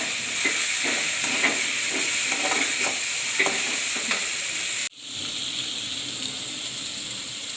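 Onions and ginger-garlic paste sizzling in hot oil in a kadai, with a spatula stirring and scraping the pan in repeated strokes about twice a second; the paste is being fried until its raw smell goes. About five seconds in the sound cuts out for an instant, then the sizzling goes on a little quieter.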